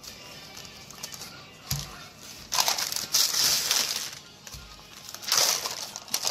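Baking paper rustling and crinkling in bursts as shortbread dough is rolled out on it with a wooden rolling pin, with a couple of dull knocks.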